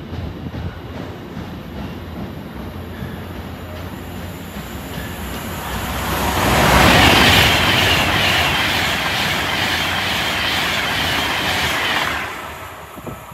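A container freight train rolls past with a steady rumble and a regular clatter of wagon wheels. About six seconds in, a high-speed passenger train rushes through on the nearer line. Its rush is the loudest sound and lasts about five seconds, then falls away shortly before the end.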